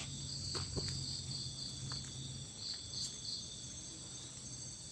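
Crickets and other night insects chirring steadily, with a pulsing chirp running through it. A faint low hum fades out about halfway, and there are a couple of faint clicks about half a second in.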